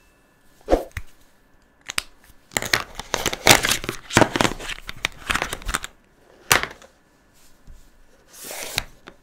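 Plastic jumbo felt-tip markers clicking and clattering against each other as a handful is gathered up and shuffled in the hands, with a dense run of knocks through the middle and one sharp click after it. Near the end a short rub as a marker is slid down onto the table.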